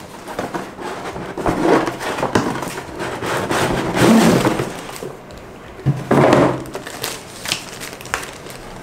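Unboxing handling noise: cardboard box packaging sliding and scraping, then a plastic bag and paper inserts crinkling under the hands, in several louder crackly bursts.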